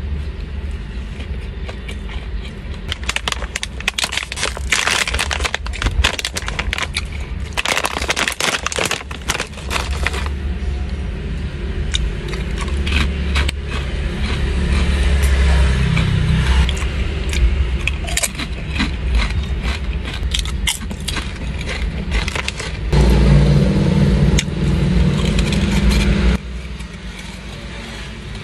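Snack eaten close to the microphone: chewing with sharp crackling of a plastic snack bag, heaviest in two spells within the first ten seconds, over a steady low car hum. A louder low drone comes in about twenty-three seconds in and stops suddenly about three seconds later.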